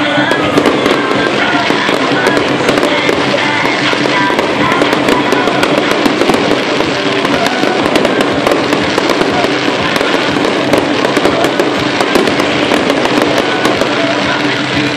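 Fireworks crackling rapidly and continuously in a dense string of small pops, with music playing underneath.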